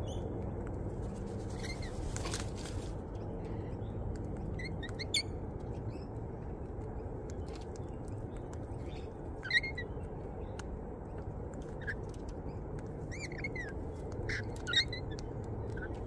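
Parrots at a seed feeder giving short, shrill chirps and squawks, scattered and a few at a time, the loudest about halfway through and near the end, over a steady low background rumble.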